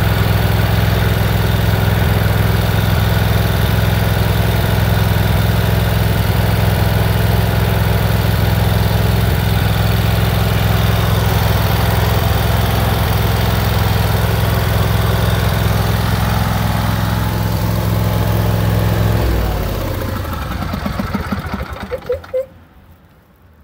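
Briggs & Stratton 24 hp twin-cylinder engine of a Craftsman YT4000 yard tractor running steadily during a test run to check for oil leaking at the filter after an oil change. It is shut off about nineteen seconds in and runs down with a few last thumps before it stops.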